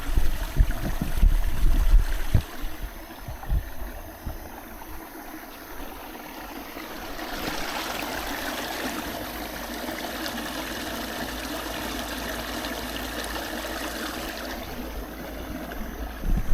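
Stream water rushing over rocks at a waterfall pool, an even steady rush that swells about seven seconds in and eases near the end, with low thumps in the first few seconds.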